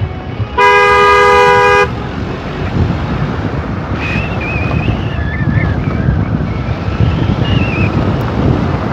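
A vehicle horn sounds once, a steady two-tone blast of a little over a second, about half a second in. A steady low rumble of road and wind noise follows, with faint high warbling tones in the middle.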